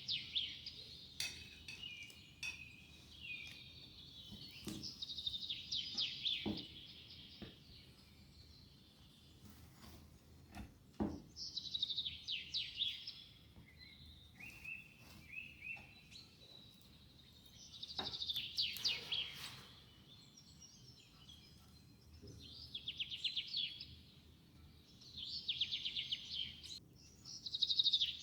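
A bird chirping in repeated short bursts of rapid song, with a few sharp clicks between the bursts.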